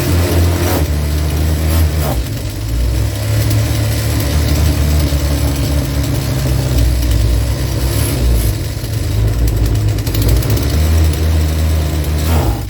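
The 25.7cc two-stroke engine of a Makita EM2600 petrol strimmer running at low speed, its pitch stepping up and down a few times.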